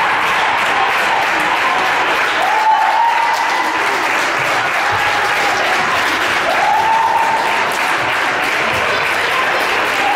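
Crowd applauding and cheering: a steady wash of clapping, with two drawn-out high calls rising above it, about two and a half and six and a half seconds in.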